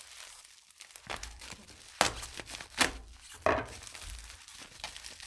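Bubble wrap crinkling and rustling as a wrapped package is handled and pulled open, with a few sharp crackles about two and three seconds in.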